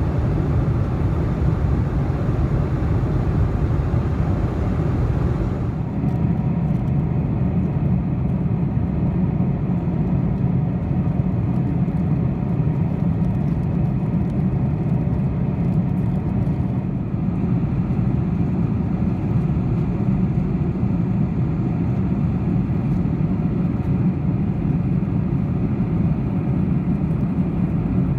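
Steady low roar of a Boeing 747-400's cabin in cruise flight: jet engines and rushing airflow heard from an economy seat. The higher hiss drops away about six seconds in, leaving the low rumble.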